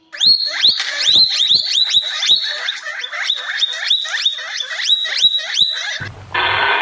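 Guinea pigs wheeking: a rapid run of short, high whistling squeals, each sliding up and holding briefly, about three or four a second and overlapping. About six seconds in they stop abruptly and a louder rushing noise takes over.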